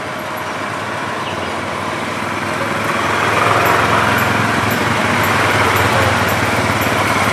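Several quad bikes (ATVs) driving past in a line, their engines and tyres growing louder over the first few seconds as they approach, then holding steady.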